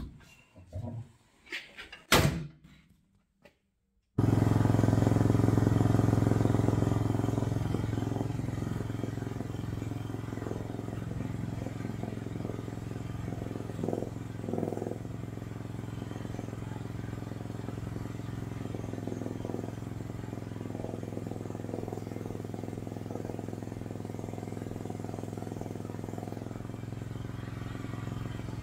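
Mini excavator's small gasoline engine running steadily, its idle freed up after a throttle lever interference was fixed. Sharp clicks come in the first few seconds. The engine cuts in about four seconds in, louder at first and easing to a steady level, with a few light knocks around the middle.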